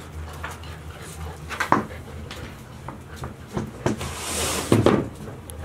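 Golden retriever puppies moving about on a hard floor: scattered light knocks and taps, with a brief rustling hiss about four seconds in and a louder knock just after it.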